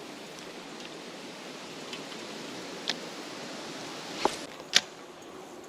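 Steady outdoor background hiss with three short, sharp clicks, one about three seconds in and two close together past four seconds, the last the loudest.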